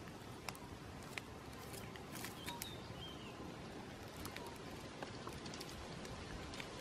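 Faint outdoor ambience: scattered light clicks and crackles over a soft background hiss, with a couple of brief high bird chirps about two to three seconds in.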